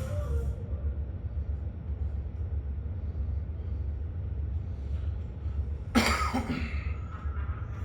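Steady low rumble of a towboat's diesel engines, with a person coughing once about six seconds in.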